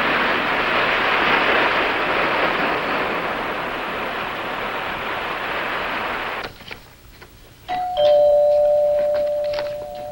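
Surf washing on a rocky shore, a steady hiss that cuts off suddenly after about six seconds. About a second later a two-tone door chime rings: a higher note, then a lower one, both ringing on.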